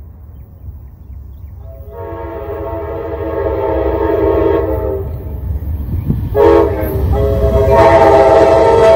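Amtrak GE Genesis diesel locomotive's multi-note air horn blowing as it approaches: a long blast, a short one, and another long one starting near the end, the long-long-short-long grade-crossing signal. Under the horn the rumble of the oncoming train grows louder.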